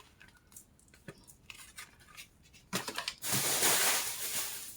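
A few faint clicks, then from about three seconds in a loud crinkling rustle of grocery packaging being handled.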